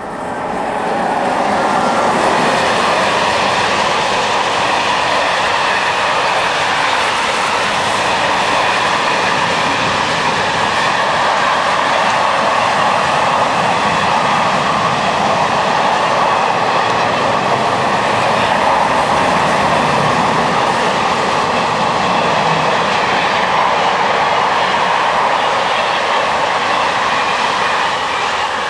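Freight train of car-carrier wagons hauled by SNCF CC 6500 electric locomotives running past close by: a steady, loud rumble of steel wheels on rail that builds up over the first couple of seconds and then holds.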